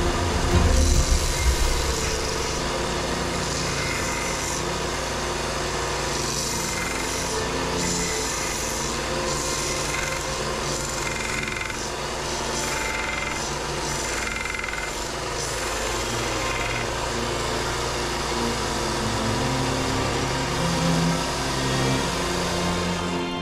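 A power tool working wood, its cutting noise coming and going as the tool is pressed to the work and eased off.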